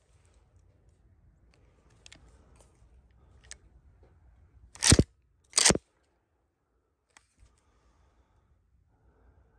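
Two 20-gauge shotgun shots fired in quick succession, less than a second apart, about five seconds in. A few faint clicks come before them.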